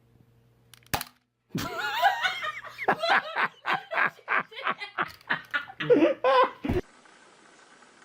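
A person laughing hard, starting with a wavering squeal and going into rapid, rhythmic bursts of about three a second, which stop abruptly near the end.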